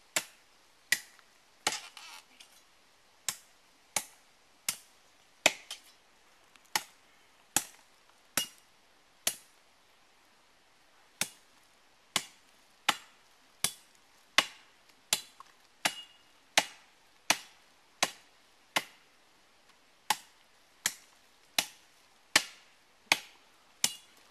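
Steady chopping of a blade into a palm trunk to fell it, about one stroke every three-quarters of a second, with one short pause near the middle. A few strokes ring briefly.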